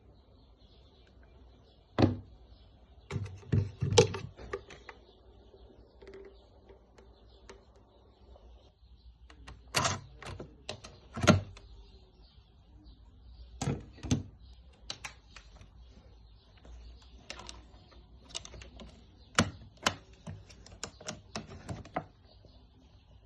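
Irregular clicks and knocks of objects being handled, unevenly spaced with quiet gaps between; no motor is running.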